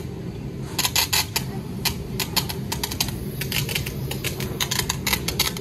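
Roller coaster train in its loading station: rapid, irregular mechanical clicking, typical of lap-bar restraints ratcheting down, over a steady low hum.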